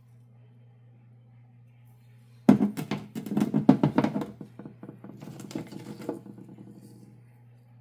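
Cut slabs of jasper and chalcedony being set down and handled on a lapidary saw's grated table. A sudden loud knock comes about two and a half seconds in, followed by a few seconds of stone knocking and clattering against the grate, over a steady low hum.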